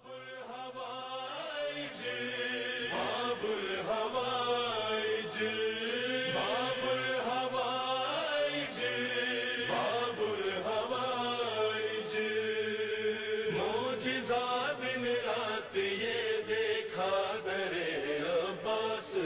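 Wordless chanted vocal intro to a devotional manqabat: voices hold a steady drone while a melodic vocal line glides above it. It fades in over the first couple of seconds.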